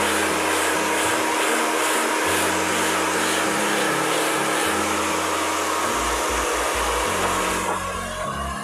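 Hand-held hair dryer blowing steadily on a man's hair as it is brushed into place, dropping off sharply near the end. Background music with a bass line plays underneath.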